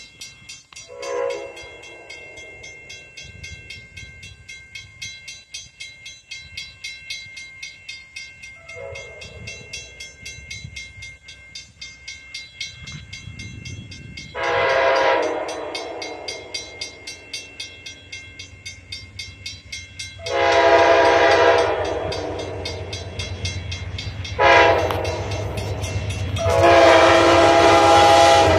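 Amtrak Downeaster's GE P42 diesel locomotive sounding its multi-chime horn as it approaches a grade crossing. Two faint distant blasts come early; then, louder, the crossing pattern of long, long, short, long blasts, the last one held, over the rising rumble of the oncoming train.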